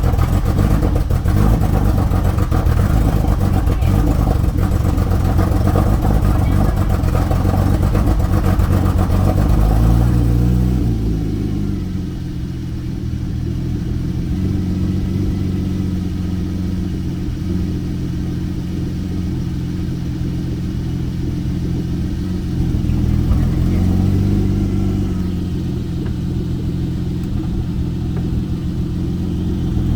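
Porsche 911 (991.1) flat-six idling roughly with a misfire, which the owner links to a fill-up of gas. For the first ten seconds or so it runs loud and ragged, then settles to a quieter, smoother idle, with a brief rise and fall in revs about halfway through.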